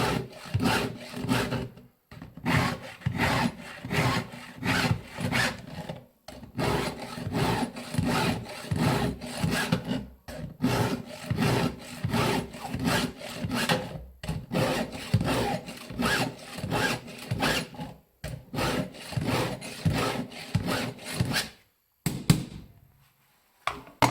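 Stihl 2-in-1 filing guide's round and flat files scraping across the cutters and depth gauges of a Husqvarna X-Cut semi-chisel chainsaw chain, in brisk, even strokes about two or three a second. The strokes come in runs of roughly four seconds with a brief pause between runs. Near the end the filing stops and a couple of knocks follow.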